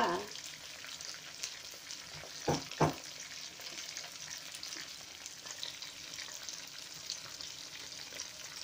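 Chicken wings deep-frying in a pan of hot oil, a steady sizzle. Two short knocks about two and a half seconds in.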